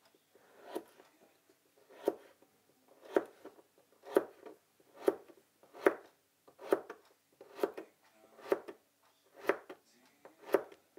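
A knife cutting food on a cutting board in slow, even strokes, about one cut a second.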